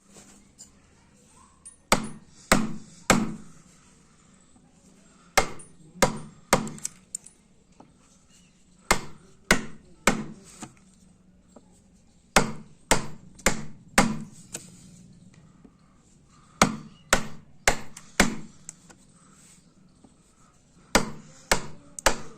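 Sharp blows of a hand tool striking wood, in bursts of three to five strikes with pauses of two to three seconds between bursts.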